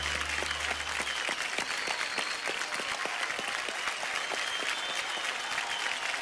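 Audience applauding, a dense, steady patter of hand claps; a held final music chord underneath dies away about a second in.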